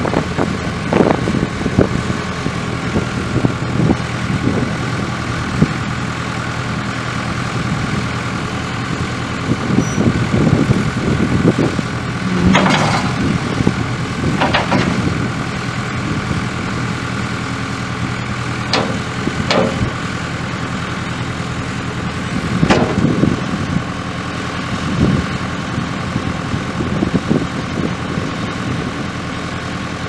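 Case 4-390 four-cylinder diesel engine of a 1992 Case 580 Super K backhoe running steadily while the front loader is worked, with a few sharp knocks scattered through, the loudest about halfway in.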